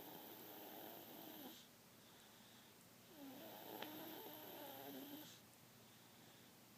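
Slow, regular snoring, faint: one drawn-out snore dies away about a second and a half in, and the next runs from about three to five seconds in. A small click sounds during the second snore.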